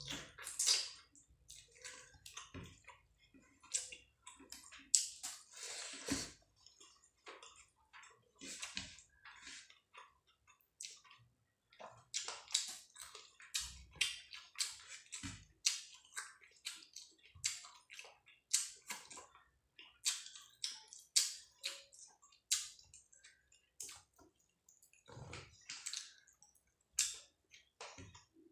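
Close, wet eating sounds: chewing and mouth noises of someone eating rice and fish curry by hand, with soft squelches of fingers working rice into curry, in irregular short clicks and squishes.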